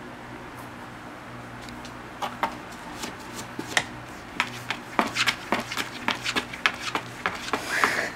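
Irregular light taps and scrapes as a cat paws and noses at the side of a cardboard box, starting about two seconds in, with a short scratchy rustle near the end. A steady low hum runs underneath.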